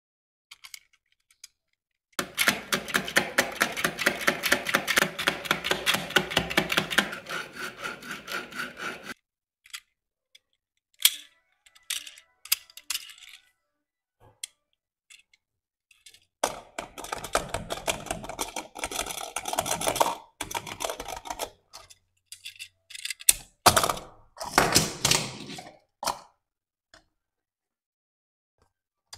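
A Tomica Hummer H2 die-cast toy car handled in the fingers: fast, even clicking and tapping in a run of about seven seconds, then a few scattered clicks. A second run of clicking follows, then several separate knocks near the end.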